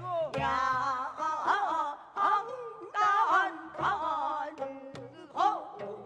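Gayageum byeongchang: women singing in pansori style with wide, wavering vibrato while plucking gayageum, the Korean 12-string zither, in accompaniment.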